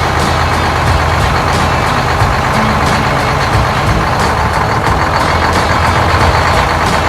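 Farm vehicle engine running steadily.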